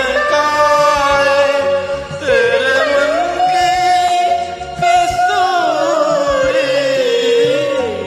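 A singer performing a Bollywood song over a karaoke backing track, holding long, wavering notes.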